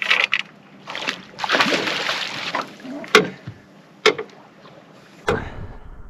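Water splashing and sloshing beside a small boat as a hooked fish thrashes at the surface, with the longest splash about one and a half seconds in. A few sharp knocks come in between, and a low rumble starts near the end.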